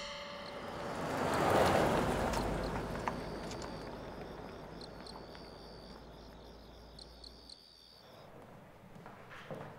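A rush of noise swells to a peak about a second and a half in and slowly dies away over a low rumble. Through the middle, night insects chirp in high, thin, pulsing tones. A few soft knocks come near the end.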